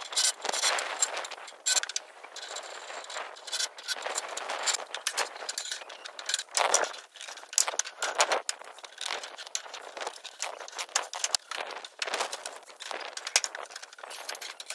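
Steel scaffold tubes, fittings and timber boards being handled and fixed: an irregular clatter of metal clanks and knocks.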